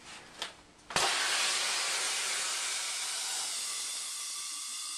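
Mammut Ride R.A.S. avalanche airbag deploying: compressed gas from its canister rushes out through the Venturi valve to fill the bag. The loud hiss starts suddenly about a second in and slowly eases as the bag fills.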